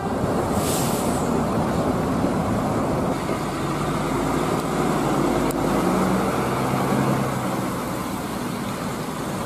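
Large coach bus engine running as the bus drives along, with steady road and traffic noise. A short hiss about a second in.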